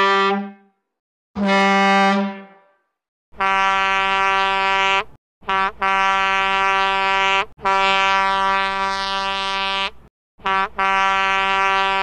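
Truck air horn sounding a string of blasts on one steady, rich note: long blasts of one to two and a half seconds, broken twice by short toots, with dead silence between them.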